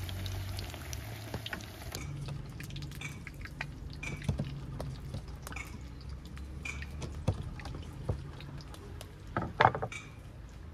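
Flat pastries deep-frying in hot oil in an iron karahi: the oil sizzles and bubbles, loudest in the first couple of seconds, with light clicks of a metal spatula against the pan and a louder metal clatter near the end.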